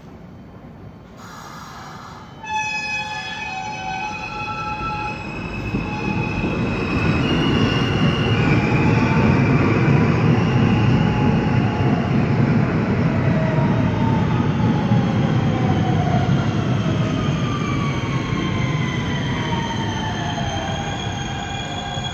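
New York City subway trains. One pulls away with a motor whine that changes pitch in steps, starting suddenly about two and a half seconds in, over a rumble of wheels on rails that builds and then eases. In the second half, falling whining tones are heard as a second train brakes into the station on the other track.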